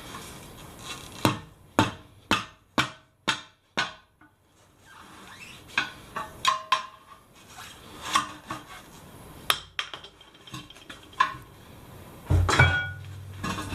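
Tyre levers knocking and clanking against a rusty steel wheel rim as an old tyre is worked off it: a quick run of about six sharp knocks from about a second in, then scattered clanks, and a heavier thud with a low ringing near the end.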